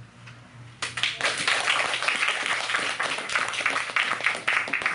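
Small audience applauding, the clapping starting suddenly about a second in and carrying on as a dense patter of hand claps.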